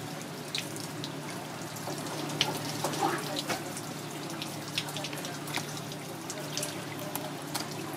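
Water running from a hose onto a wet wooden cutting board, with scattered drips, small splashes and wet squelches as hands pull the innards out of a crocodile fish. A steady low hum sits underneath.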